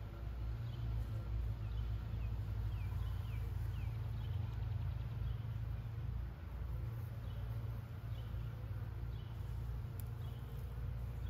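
Honeybees buzzing around an open hive frame, over a steady low rumble. A few short falling bird chirps sound high above.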